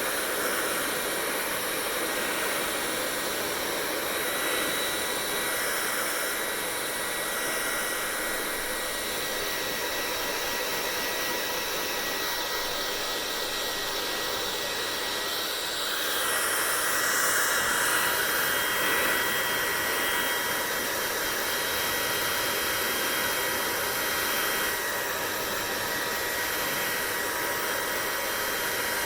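Hair dryer running steadily: a continuous blowing hiss with a faint high whine, growing louder for a few seconds about halfway through.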